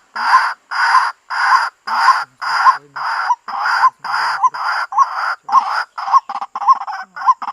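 White-breasted waterhen calling a harsh, repeated 'kwak', about two calls a second, the calls growing shorter and quicker toward the end.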